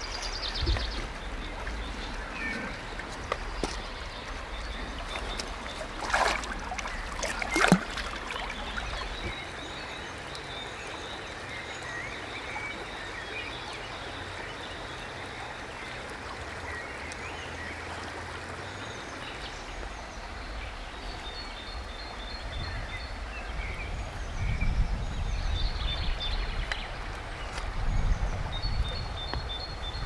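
Steady rush of river water running over shallows, with small birds chirping now and then, more often near the end. Two sharp knocks stand out, one about six seconds in and a louder one shortly before eight seconds.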